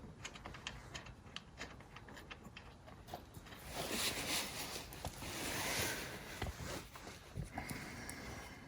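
Hands fitting bolts and nuts to a plastic ATV footwell panel: faint small clicks and taps, with a longer scraping rustle of plastic in the middle.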